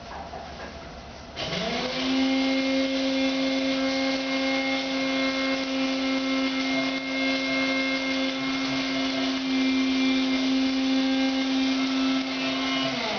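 A small electric motor spins up about a second and a half in, runs at a steady pitch with a hum and whine, and winds down near the end.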